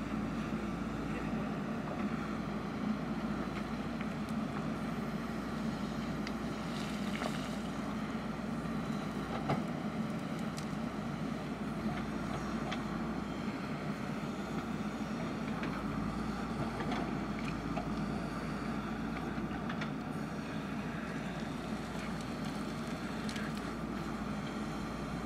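JCB backhoe loader's diesel engine running steadily under work, with a few short knocks from the machine scattered through.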